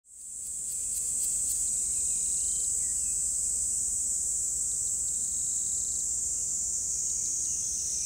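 Steady high-pitched chorus of insects trilling in a woodland at dusk. It fades in over the first half second, with a few faint short chirps beneath it.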